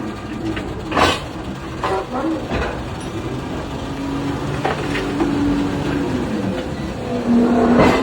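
Electric mining excavator at work: a steady electric drive hum that shifts up and down in pitch, broken by several sharp clanks and knocks.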